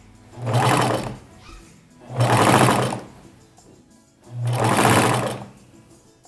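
Domestic straight-stitch sewing machine running in three short bursts of about a second each, sewing lace onto a padded bra cup a little at a time with pauses between runs.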